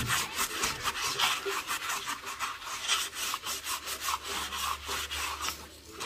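Fine-grit sandpaper rubbed by hand over a dresser's hardware in quick back-and-forth strokes, several a second, polishing out stains to bring up a shine.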